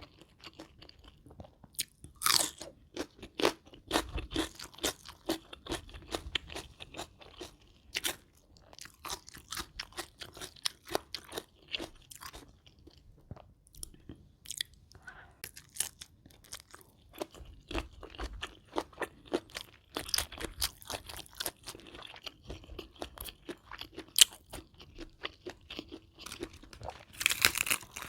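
Close-miked chewing and crunching of crisp food, with irregular crunches throughout. Several bites stand out, and the loudest comes near the end.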